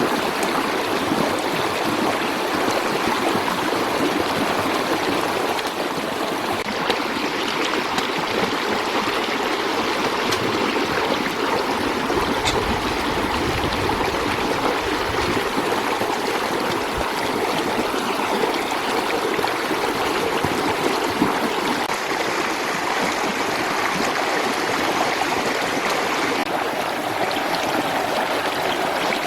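Steady rushing of running water, like a flowing stream.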